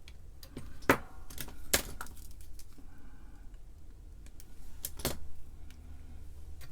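Small metal hand tools clicking and clinking against the workbench and circuit board while a capacitor is positioned for soldering. The sharpest clicks come about a second in, just under two seconds in and near five seconds, over a low steady hum.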